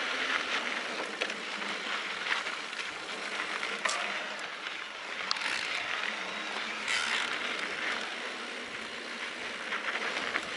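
Mountain bike rolling along a dirt trail: a steady crunch of tyres on loose dirt and grit, with the bike rattling and a few sharp clicks over bumps.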